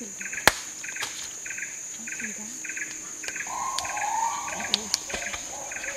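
Tropical rainforest insects: a steady high-pitched drone with a pulsed chirping repeating just under twice a second. A single sharp snap about half a second in is the loudest sound, with two smaller clicks near the end.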